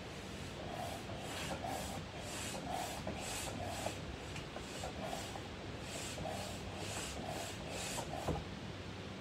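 Hand-operated air pump being worked up and down to inflate a vinyl pool, a short rush of air on each stroke, about two or three a second. A sharper knock comes about eight seconds in.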